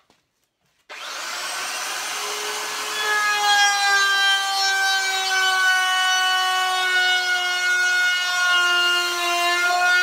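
An electric wood router starts suddenly about a second in and runs with a high, steady whine. It cuts a round-over profile along the edge of a cherry and maple cutting board. The whine grows louder about three seconds in, and its pitch sags slightly as the bit bears into the wood.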